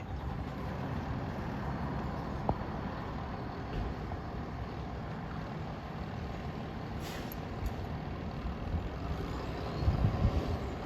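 A fire engine's diesel engine running with a steady low rumble. There is a brief hiss about seven seconds in, and louder low rumbling near the end.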